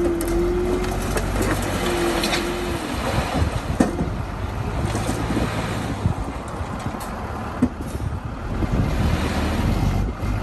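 Diesel engine of heavy earthmoving machinery running steadily, with scattered metallic knocks and a short squeal in the first couple of seconds.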